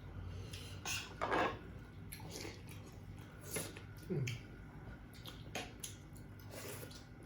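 Light, scattered clinks, taps and scrapes of dishes and utensils at a meal, the loudest scrape about a second in, with a brief low murmur about four seconds in.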